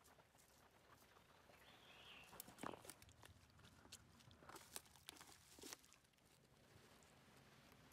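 Faint footsteps crunching over dry needles and twigs on the forest floor, with scattered small snaps and crackles.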